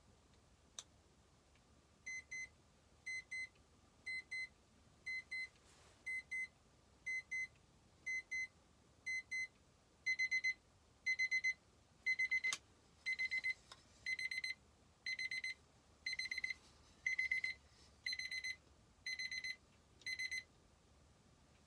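Electronic alarm of a transparent alarm clock beeping. It starts with quiet pairs of short high beeps about once a second, then about halfway through steps up to louder bursts of rapid beeping, still about once a second, and stops near the end. A single click comes a second before the beeping starts.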